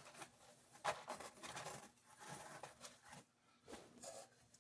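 Faint scattered clicks and short scraping rustles of small parts being handled during bench reassembly of a model train motor truck.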